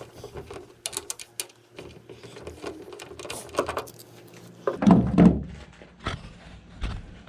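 Small metal clicks and taps of hand-tool work as the Allen bolt is backed out of a freshly set rivet nut insert in a truck tailgate, with one louder dull thunk about five seconds in.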